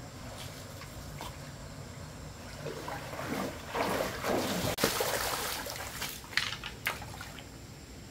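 Legs wading quickly through knee-deep stream water, sloshing and splashing for about three seconds, followed by two short, sharper splashes.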